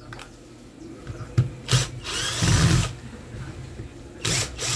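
Cordless drill-driver running in short bursts, backing screws out of a hand blender's housing: a run of about a second starting two seconds in, and another near the end.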